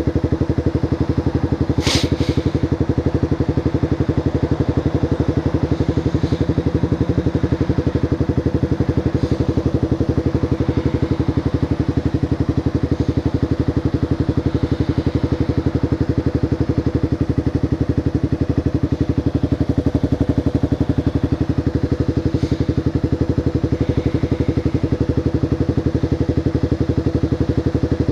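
Motorcycle engine idling steadily, a fast even pulse at an unchanging pitch, with one short sharp click about two seconds in.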